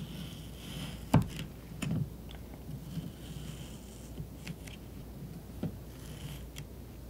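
A kitchen knife slicing through kabocha squash and knocking on a wooden cutting board, a series of irregular chops with the sharpest one about a second in.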